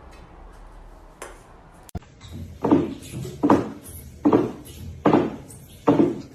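Five evenly spaced clanks of kitchenware being struck, about one a second, each ringing briefly.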